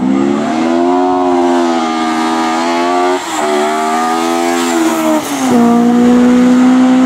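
Rally car engine pulling hard under acceleration, its pitch climbing and then dropping at two gear changes, about three seconds and five and a half seconds in. After the second change it holds a steady, louder note.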